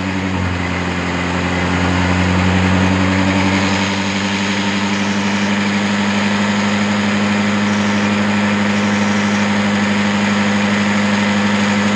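Honda Dio scooter's single-cylinder four-stroke engine idling steadily with no load, its pitch shifting slightly about half a second in. The carburetor's air screw is being turned to set the mixture for the highest idle speed.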